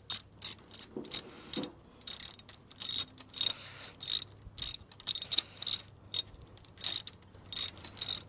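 Ratcheting hex-key tool with a 6 mm bit clicking in short bursts, about two a second, as it is swung back and forth to loosen a bicycle's handlebar clamp bolts.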